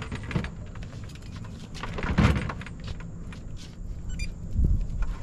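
Knocks, scrapes and thumps of a large 1/5-scale RC car being handled and slid across a pickup's plastic bed liner, with a heavy thump about two seconds in and a low thump near the end. A quick run of small clicks comes just after four seconds.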